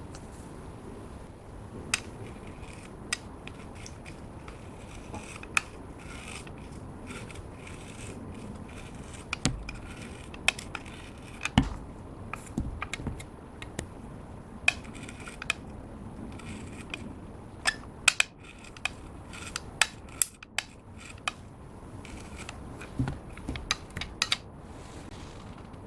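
Clear slime being worked by hand, giving irregular sharp clicks and pops, with louder clusters of snaps in places.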